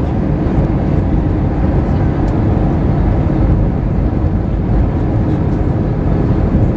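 Airbus A320 cabin noise in flight at a seat over the wing: a steady, even roar of the jet engines and airflow with a low rumble.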